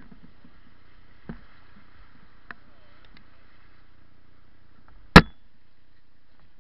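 Hard knocks on the canoe carrying the camera: a light one about a second in and one very loud, sharp knock about five seconds in. Between them, faint rushing of river water through a riffle.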